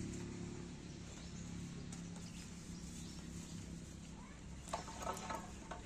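Horse hooves knocking a few times in quick succession near the end, over a steady low hum.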